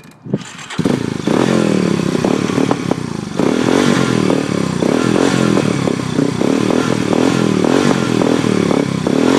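ATV engine coming in loudly about a second in, then revved up and down again and again. The clutch is not being let out, so the machine stays put.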